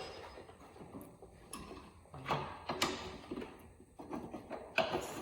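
A handful of irregular metallic knocks and clinks as a stuck axle is worked out of a 1973 Honda XL175 motorcycle wheel hub; the wheel bearing is stuck on the axle.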